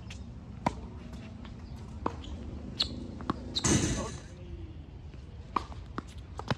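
Tennis ball being hit back and forth in a rally, sharp pops of the ball off racket strings and hard court a second or so apart. A louder burst of noise comes a little past halfway.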